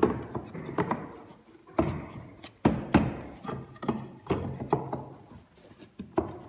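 Timber stair spindles being pushed and knocked by hand into the rebated base rail: a run of sharp wooden knocks, about two a second, with rubbing and scraping of wood between them as the tight-fitting spindles are seated.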